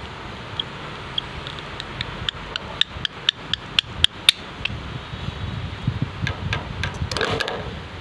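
Rose-ringed parakeet handling a plastic lid in its beak, the lid clicking against the cage wire: a run of sharp clicks, about four a second, growing louder, then a few more clicks and a short scraping rattle near the end.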